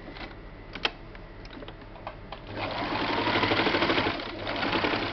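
Sewing machine stitching a seam: a few light clicks first, then the needle running in a fast, even rhythm from about two and a half seconds in until near the end.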